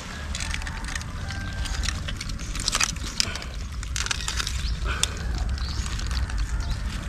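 Live crabs and trap gear being handled: irregular clicks, scrapes and rattles of hard shells and gear over a steady low rumble.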